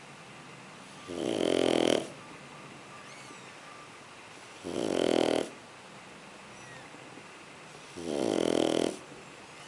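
Shar Pei puppy snoring: three snores, each about a second long, coming roughly every three and a half seconds.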